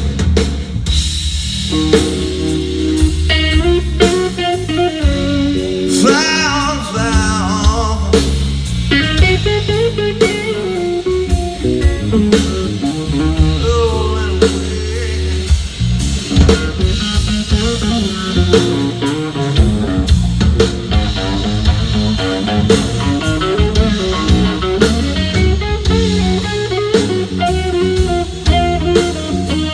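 Live blues band playing an instrumental passage: a guitar lead with bending notes over bass and drum kit.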